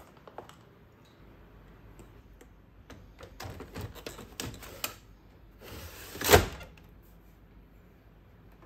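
Hard plastic rattling and scraping as a yellow HP 507A toner cartridge is slid into its slot in an HP LaserJet M551 color laser printer, swelling into one sharp, loud clack about six seconds in as the cartridge seats home.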